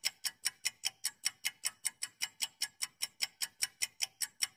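Countdown-timer sound effect: a clock ticking fast and evenly, about five ticks a second.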